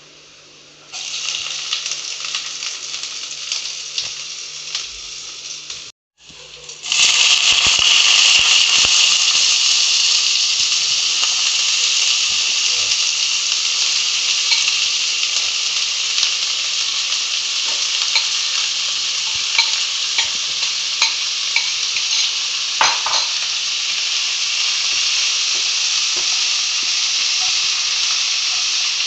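Chopped onions frying in hot olive oil in a non-stick pan: a steady sizzle that starts about a second in and, after a brief drop-out around six seconds, comes back louder. A few light clicks of stirring sound through it.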